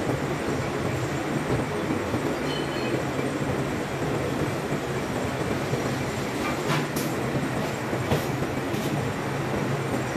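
Steady mechanical rumble with a low hum from a ship's deck crane working as it lifts and swings an excavator, with a few faint clicks about seven to nine seconds in.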